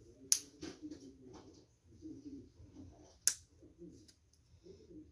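Small plastic toy-figure parts clicking as they are handled and snapped together: two sharp clicks about three seconds apart, with a few lighter clicks between, over a soft low murmur.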